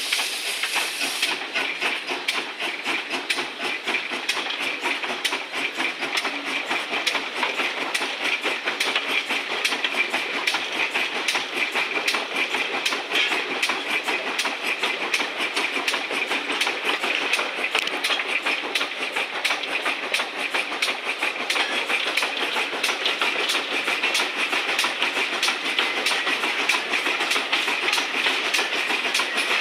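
GWR 1366-class pannier tank locomotive 1369 working along the line, heard from its footplate: a fast, even beat of exhaust and wheel-on-rail clatter. A high steam hiss stops about a second in.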